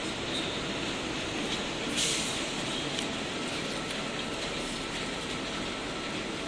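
30 W fiber laser marking machine running as it marks text onto a cylindrical canister turned by its rotary attachment: a steady hiss with a faint whine, briefly louder about two seconds in.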